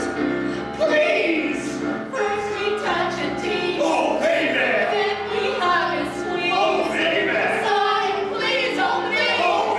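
A vocal group singing a song together in harmony.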